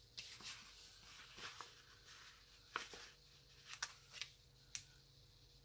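Faint rustling and crinkling of a glossy sticker sheet and paper being handled, with a few soft short clicks spread through.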